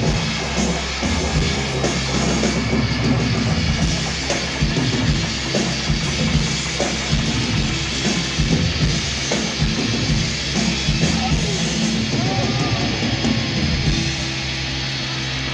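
Live amplified rock band: a drum kit playing loose, frequent hits over a held, droning bass and guitar sound. The drums drop out about fourteen seconds in, leaving the sustained guitar sound.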